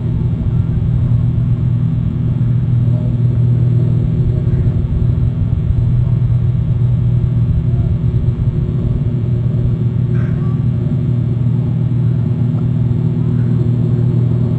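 A boat's engine droning steadily across the water, a loud, even low rumble.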